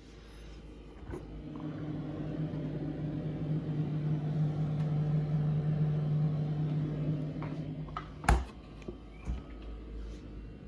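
GE refrigerator running with a steady low electric hum that grows louder over the first few seconds. About eight seconds in, a loud click sounds and the hum stops, followed by a couple of softer clicks.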